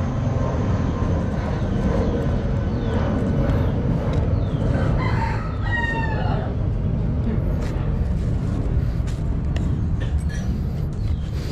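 A rooster crows once, a drawn-out call about five seconds in, over a steady low rumble.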